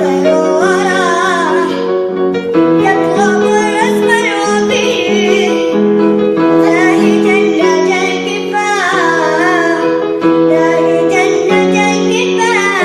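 Music: an Arabic song sung with a wavering melody over steady, held accompaniment notes.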